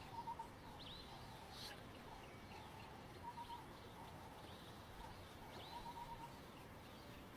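Faint wild birdsong: one bird gives short runs of three or four quick notes, repeated every few seconds, while other birds make higher chirps.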